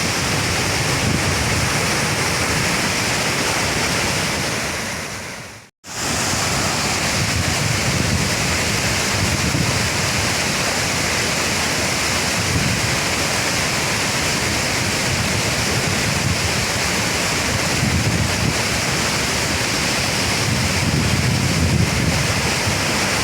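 Waterfall in high flow, swollen by floodwater from upstream, giving a loud, steady rush of falling water. The sound fades down to a brief silence about six seconds in, then picks up again at full level.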